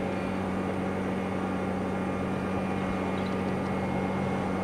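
Steady low mechanical hum with a constant drone and a wash of noise over it, unchanging throughout.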